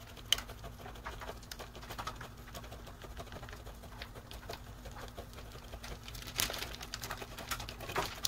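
A block of cheese rubbed on a hand-held box grater: faint, irregular rasping scrapes, with a couple of louder strokes near the end, over a steady low hum.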